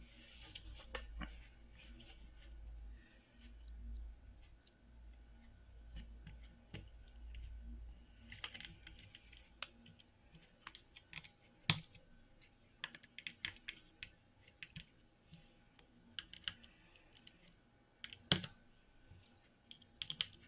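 Small precision screwdriver turning the tiny screws that hold a replacement circuit board onto a hard drive, with faint scattered clicks and scrapes of metal and of the board being handled. The clicks come thicker in the second half.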